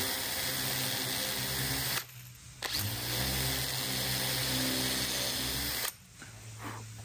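Cordless drill-driver running in two bursts on the butt of a wooden gunstock: about two seconds, a brief stop, then about three seconds more before it stops near the end.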